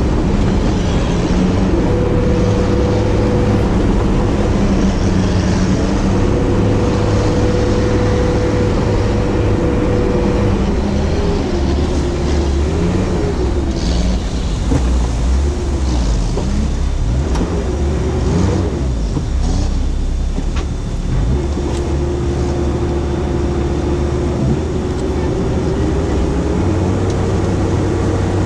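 Sherp amphibious ATV's diesel engine running steadily under load, heard from on board, with a steady whine over the engine note. About halfway through the whine's pitch wavers up and down for several seconds, then settles again.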